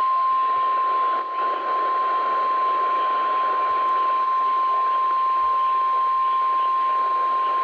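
NOAA Weather Radio 1050 Hz warning alarm tone: a single steady tone over radio receiver hiss, the signal that a warning message follows.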